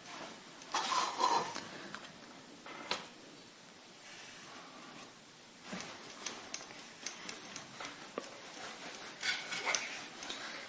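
Toy building pieces being handled and stacked by hand: light rubbing scrapes and small clicks as the pieces are set against one another, with a few louder knocks about a second in and near the end.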